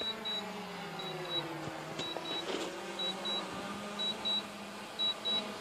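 DJI Mavic Pro quadcopter's propellers whining as it descends to land itself, the pitch dropping slightly over the first two seconds and then holding steady. A high double beep repeats about once a second.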